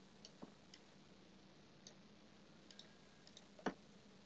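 Near silence broken by faint, irregular computer mouse clicks while vertices are selected one by one, with one louder click about three and a half seconds in.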